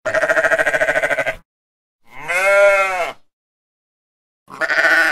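Sheep bleating three times: a first quavering bleat of about a second and a half, a second that rises and falls in pitch, and a third beginning near the end.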